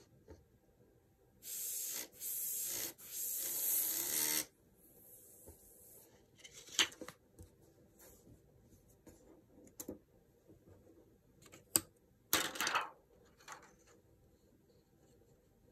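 Airbrush hissing as it sprays paint in three short bursts close together, starting about a second and a half in, then one more short burst near the end. A few light clicks fall in between.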